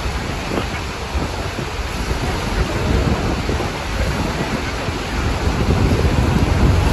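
Steady roar of the Horseshoe Falls at Niagara and the churning river below, mixed with heavy wind buffeting the microphone.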